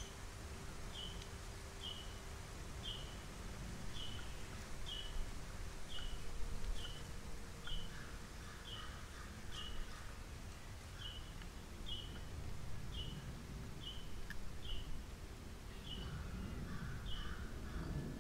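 Outdoor ambience: a short, high chirp repeated steadily about twice a second, with fainter bird calls now and then behind it over a low background rumble.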